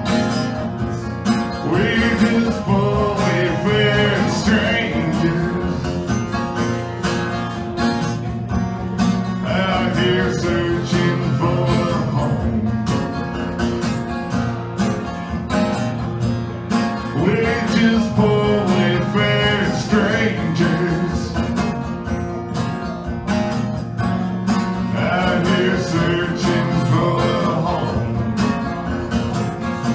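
Acoustic guitar strummed steadily through a live solo folk song, with a man singing four phrases over it, about eight seconds apart.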